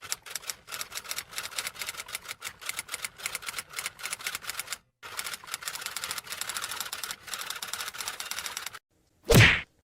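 Typewriter typing: rapid key clicks in two runs with a short break about five seconds in, followed by one brief loud burst near the end.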